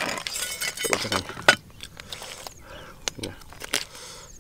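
Cooked crab shells cracked and crunched while eating, with sharp clicks of a metal spoon against a metal bowl, the loudest about one and a half seconds in. A brief voice sound about a second in.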